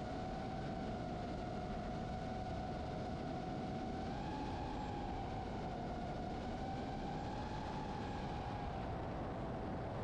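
DJI FPV drone's motors and propellers whining in flight, one steady tone that rises a little about four seconds in and again near the end before settling back, over low wind rush on the drone-mounted camera's microphone.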